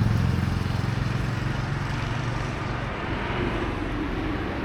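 A motor vehicle's engine hum fading away as it passes and moves off, over general street noise.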